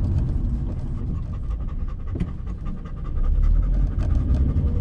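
Golden retriever panting quickly and steadily inside a moving car, with the low steady rumble of the car's engine and road noise underneath.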